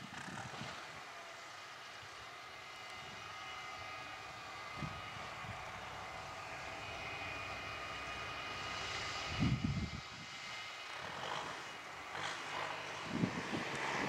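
Fendt 514 tractor and McHale round baler running steadily while baling, a constant engine drone with a high machinery whine over it. A few short low thumps break in, the loudest about nine and a half seconds in.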